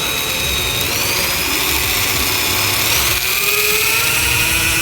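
Oxford rotary tool (mini grinder) running with a high-pitched motor whine, its pitch stepping up about a second in and again about three seconds in as it speeds up.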